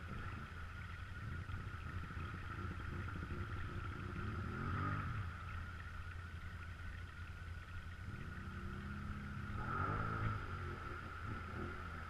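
ATV engine idling, revving up and dropping back twice, around five seconds in and again around nine to ten seconds in.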